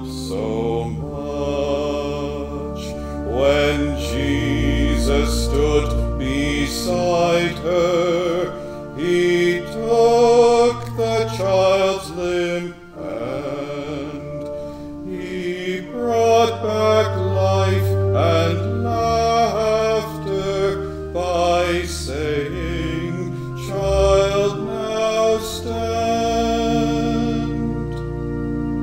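A man's solo voice singing a hymn with vibrato, accompanied by an organ holding long, steady bass notes.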